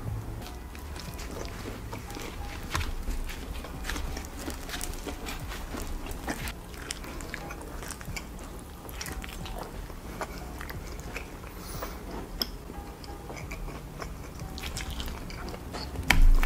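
Close-miked wet chewing and biting as a man eats a large slice of pizza drenched in animal-style sauce by hand: many short sticky clicks and smacks of mouth and fingers. Soft background music plays throughout, and a loud low thump comes near the end.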